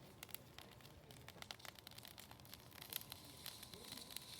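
Faint, irregular crackling of a small trash fire, with scattered clicks that come a little more often near the end.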